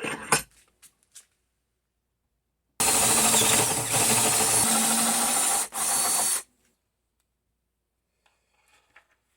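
Cordless power driver running under load, driving in a bolt that mounts the vise to the workbench: one run of about three seconds, then a short final burst as it seats. A few light clicks of parts being handled come just before.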